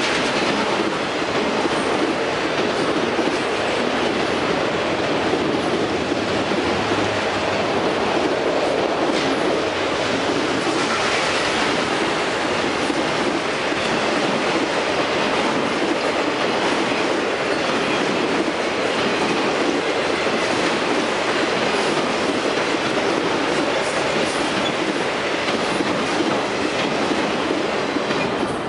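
Freight train of autorack cars rolling past, steel wheels running steadily on the rails, tapering off at the very end as the last car clears the crossing.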